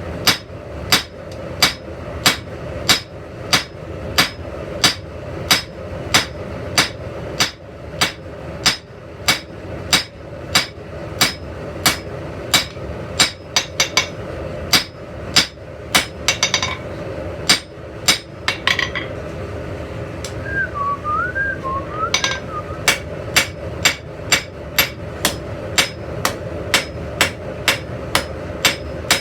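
Blacksmith's hand hammer striking iron on an anvil, about two blows a second, each ringing briefly. The steady blows break off for a few seconds past the middle, where someone whistles a short wavering snatch of tune, then resume.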